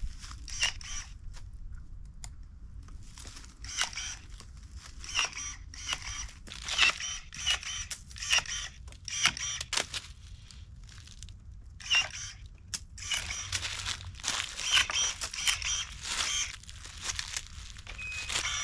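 Battery-powered electric pruning shears cutting grapevine canes: repeated short motorised snips, each with a brief high whine, sometimes several in quick succession.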